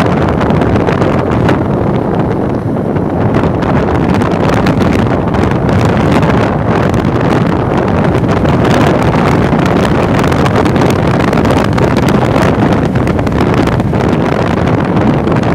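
Wind buffeting the microphone on a moving motorcycle, with steady road and vehicle noise underneath.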